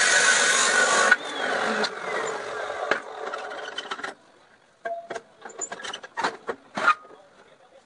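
Ridgid abrasive chop saw cutting steel, loud and harsh; about a second in the cut stops and the blade spins down with a falling whine over the next three seconds. Then several short metal clanks and knocks as a steel pipe is set into the saw's vise.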